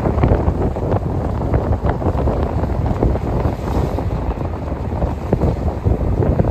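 Freight train of tank cars rolling past close by: a steady rumble of steel wheels on rail with many irregular clacks, and wind buffeting the microphone.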